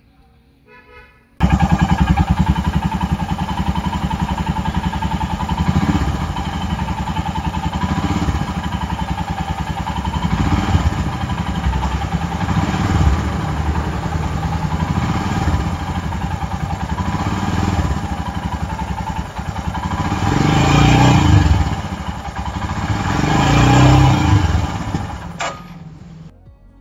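Royal Enfield Himalayan's single-cylinder engine running from about a second in, revved up several times, most strongly near the end, before it cuts off.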